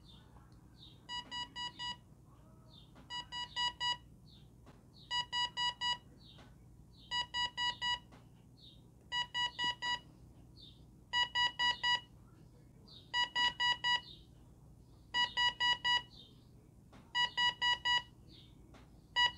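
Philips digital clock radio's alarm in bell (buzzer) mode: groups of four short, high beeps about every two seconds, growing louder as the alarm ramps up from quiet.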